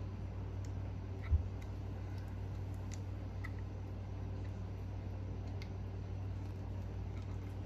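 Faint small clicks and ticks of metal engine parts being handled as the piston is worked out of a nitro engine, with one dull low thump about a second and a half in, over a steady low hum.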